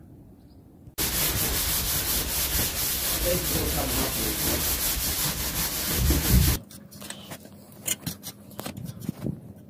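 Old paint and tape being scraped and sanded off the edge of a thin fibreglass roof: a dense, rasping rub that starts suddenly about a second in and cuts off after about five and a half seconds. Scattered light taps and clicks follow.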